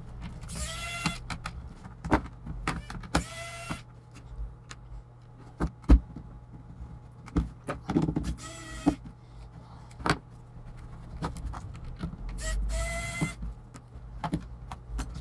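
A cordless electric screwdriver whirs in four short bursts, each under a second, as it backs out the small screws of a laptop's plastic bottom case. Sharp clicks and taps of the bit, screws and plastic case come in between.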